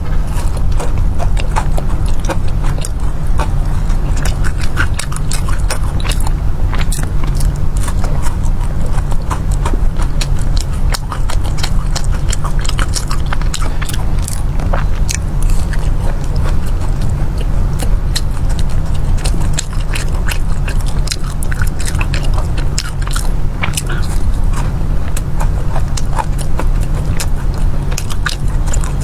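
Close-up chewing and biting of syrup-glazed fried dough pastries (mi san dao and tang erduo), a dense run of short crisp clicks and smacks. Under it runs a steady low rumble.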